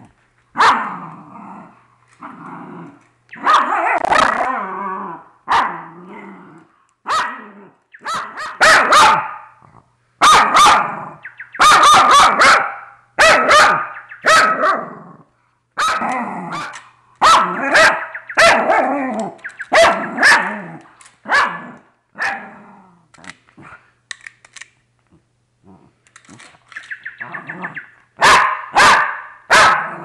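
Small dog barking in rapid, excited bursts, some with a growl, frustrated at a fake bird toy it keeps attacking; the barking eases off briefly about three-quarters of the way through, then starts again.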